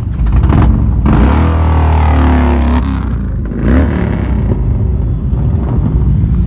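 A column of motorcycles, including Harley-Davidson touring bikes, rolls past at close range with engines running. The loudest bike goes by between about one and three seconds in. A brief rev rises in pitch a little before four seconds.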